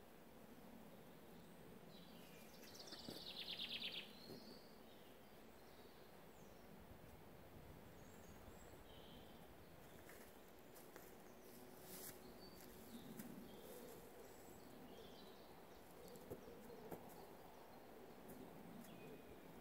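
Quiet woodland ambience: scattered faint bird chirps, with a short, rapid bird trill about three seconds in that is the loudest sound. Soft rustling of tent canvas being handled and feet on leaf litter comes and goes.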